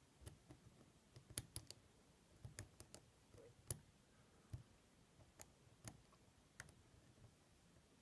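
Faint, irregular clicks of a hook pick and tension wrench working the pins of a six-pin brass cylinder lock during single-pin picking, the small ticks of pins being lifted and setting at the shear line.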